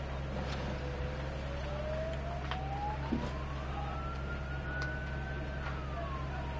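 Emergency-vehicle siren wailing in one slow sweep: it dips low, climbs over about four seconds to a high note, then falls again near the end, over a steady low hum.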